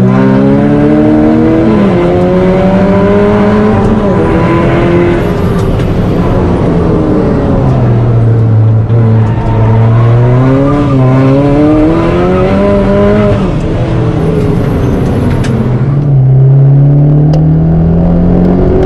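Fiat Punto Abarth's turbocharged four-cylinder engine heard from inside the cabin on track, revving up through the gears and falling back for braking several times, over steady road and tyre noise.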